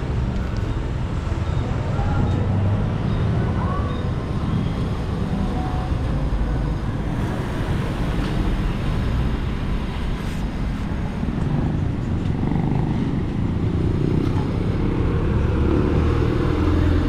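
Street traffic: vehicle engines running and passing, a steady low rumble.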